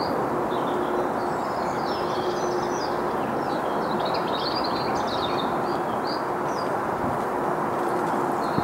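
Small birds chirping and twittering over a steady rush of wind, with a faint low hum underneath.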